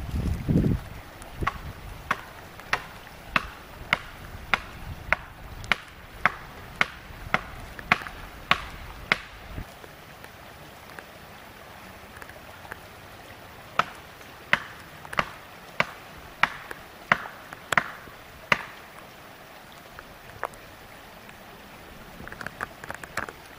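Sharp knocks repeating steadily, about one and a half to two a second, in two runs with a pause of a few seconds between and a quicker cluster near the end.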